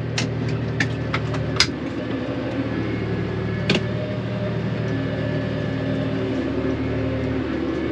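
Tractor engine running steadily under load while driving a two-rotor hay rake from its PTO, with a few sharp clicks or knocks in the first couple of seconds and one more just before four seconds in.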